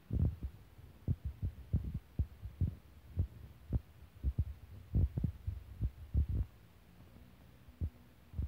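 Irregular dull, low thumps, two or three a second, thinning out after about six and a half seconds with a couple more near the end.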